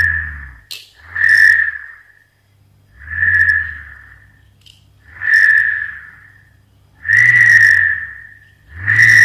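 Homemade bottle-cap whirligig spinning on its string, a whistling whir that swells and fades with each pull of the string, about once every two seconds.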